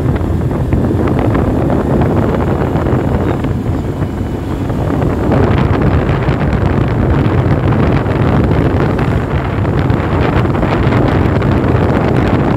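Wind buffeting the microphone of a moving vehicle, a loud, steady rumble with road and engine noise under it, a little louder from about five seconds in.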